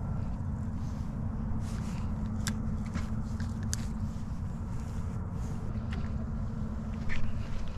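A steady low mechanical hum from the boat, with a few sharp clicks around the middle and a louder knock near the end.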